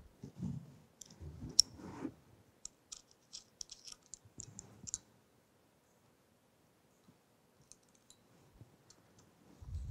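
Small metallic clicks and ticks of a hex key seating in and turning set screws in a steel gear blank. There is a quick cluster of clicks with a few dull knocks in the first five seconds, then only a few faint ticks.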